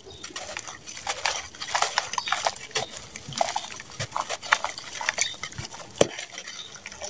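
Hands crushing and crumbling a chunk of dry sand-cement, an irregular gritty crunching and crackling as grains and pieces break off into a bowl of water, with one sharp snap about six seconds in.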